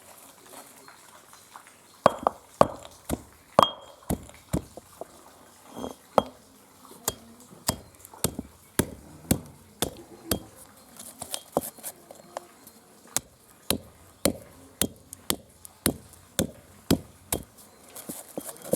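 Dry fruits and nuts being broken up by hand with a kitchen tool: a steady run of sharp knocks with a short clinking ring, about two a second, starting about two seconds in.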